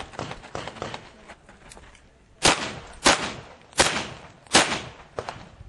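Gunshots in a practical-shooting course of fire. After about two quieter seconds with a few small clicks, four loud, sharp shots follow about 0.7 s apart, with a couple of smaller sharp reports near the end.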